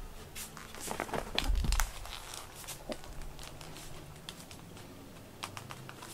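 Rustling and crinkling handling noise with scattered clicks and a dull thump about a second and a half in: a black cat's body brushing against the camera.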